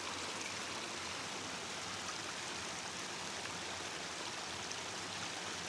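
A river flowing, a steady rush of moving water.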